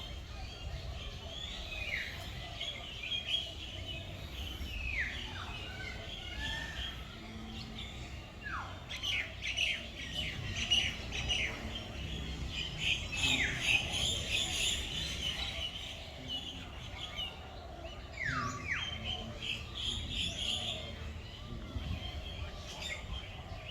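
Many birds chirping together in an aviary, with a loud falling whistle call repeated every few seconds.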